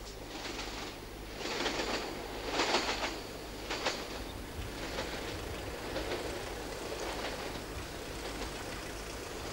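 A train running along the track, its wheels rumbling with irregular sharp knocks and clatters over rail joints and pointwork.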